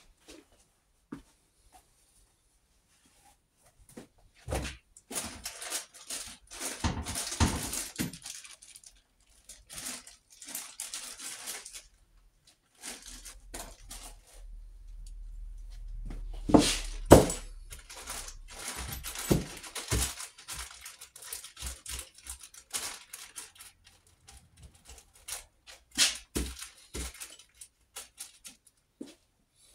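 Rummaging for crankcase bolts: plastic bags rustling and crinkling while small metal parts clink and knock. A low rumble builds around the middle and ends in two loud knocks about 16 to 17 seconds in.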